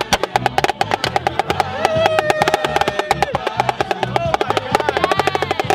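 Street drum circle: snare drum struck in a fast, even rhythm with other percussion, over a music track with a repeating bass line. Voices shout over it twice.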